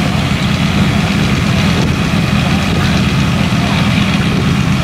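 Fire engines' motors running steadily at pumping speed to drive their water pumps, a deep, even drone.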